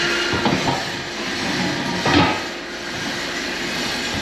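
Knocks and clanks of welded steel square tubing as a person climbs the frame, with the loudest clank just after two seconds, over a steady hiss.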